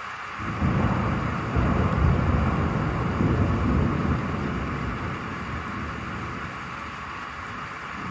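A roll of thunder: a deep rumble swells about half a second in, is loudest over the next three seconds or so, then fades away, over a steady hiss of rain.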